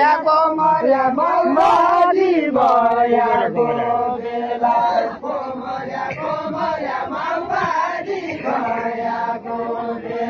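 A large crowd chanting a song together in unison, many voices on long drawn-out notes.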